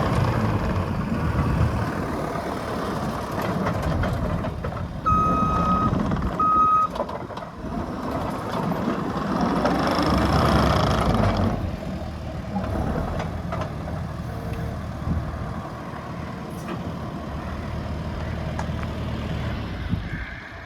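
Case TV370 compact track loader's diesel engine running as the machine is worked, with its backup alarm beeping twice about five seconds in. The engine noise swells around ten seconds and drops lower a couple of seconds later.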